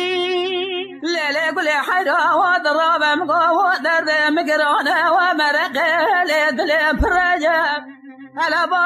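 Kurdish dengbêj folk song: a held note, then from about a second in a long wordless, heavily ornamented vocal line with wide wavering pitch over a steady drone. It breaks off briefly near the end, then resumes.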